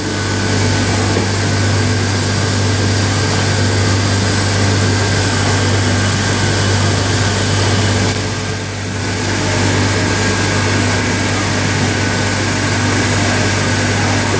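Duran Omega Intro 110 folder-gluer running, its belts carrying carton blanks through: a loud, steady machine hum with a strong low drone and thin high whines, dipping briefly a little past halfway.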